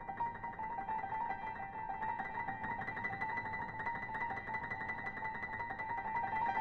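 Grand piano played fast in the upper-middle register: a rapid, even stream of short notes circling within a narrow band of pitches, many notes a second.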